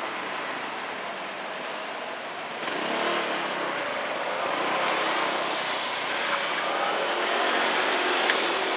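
Road traffic: cars passing on a street over a steady hiss of background noise. It swells about two and a half seconds in, and there is one short click near the end.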